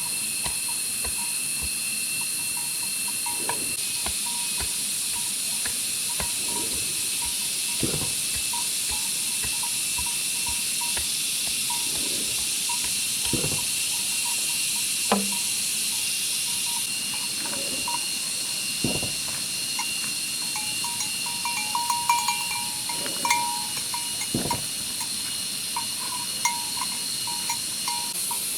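Steady, high-pitched drone of forest insects, with irregular dull knocks of bamboo being worked, about a dozen spread across the stretch.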